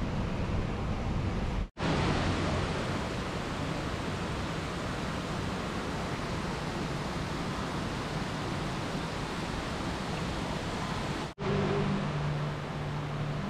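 A small waterfall splashing steadily into a koi pond, a continuous rush of falling water, cut off abruptly near the start and near the end. Around it there is steady outdoor noise, and after the second cut a steady low hum.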